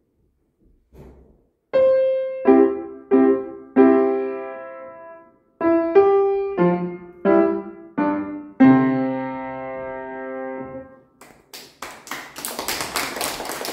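A child playing a short phrase of single notes and chords on the piano, each one struck and fading, ending on a held chord. Near the end a group of children starts clapping.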